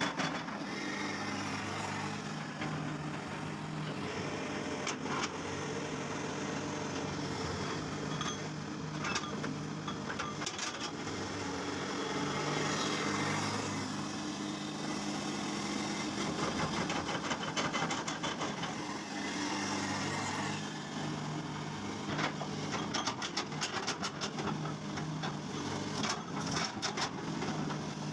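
Komatsu PC300-8 excavator's diesel engine running steadily under working load, with scattered clicks and knocks throughout.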